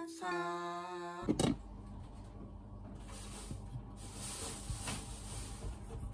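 Background music ends about a second in, followed by a short knock. A kitchen knife then scrapes and presses faintly into the hard rind of a whole kabocha squash as the blade is worked in.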